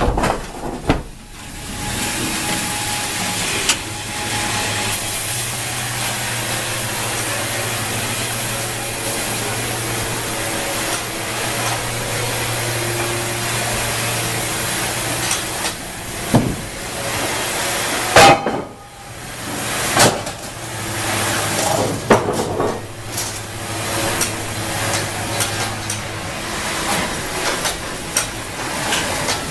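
Wravor band sawmill line and its conveyors running: steady machine noise with a low hum that holds for about ten seconds, stops, and comes back a few seconds later. Several sharp knocks fall about two-thirds of the way through.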